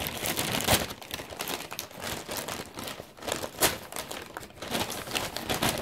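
Brown paper takeaway bag rustling and crinkling as hands open it and rummage inside, a run of irregular crackles.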